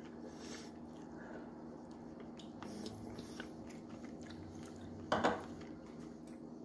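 Small clicks and taps of food and dishes being handled on a table, over a steady low hum, with one brief louder knock about five seconds in.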